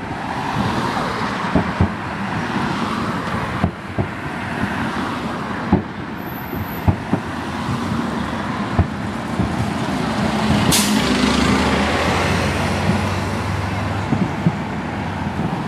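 Road traffic running past, with a city bus's engine growing louder about ten seconds in and a short sharp air-brake hiss about eleven seconds in. Scattered sharp bangs of distant fireworks.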